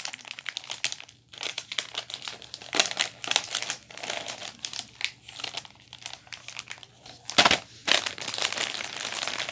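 Gift-wrapping paper crinkling and rustling as it is handled and folded, in irregular crackles. There is a louder sudden noise about seven and a half seconds in.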